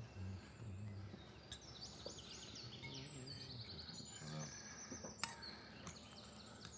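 Songbirds singing faintly, with many short repeated chirps and trills. A single sharp clink, a spoon against a soup plate, about five seconds in.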